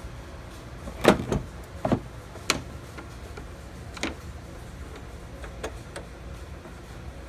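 A handful of sharp clicks and knocks: several close together about a second in, one more about a second later, and a lighter one about four seconds in, over a steady low hum.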